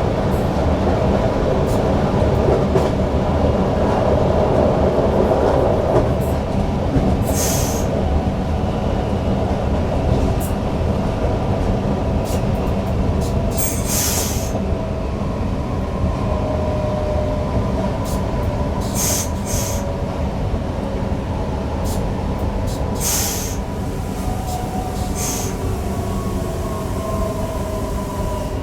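Newag Impuls EN63 electric multiple unit running, heard from the driver's cab: a steady rumble of wheels on rail with an electric whine whose tones slide gently down in pitch during the second half. Several short high hisses break in along the way.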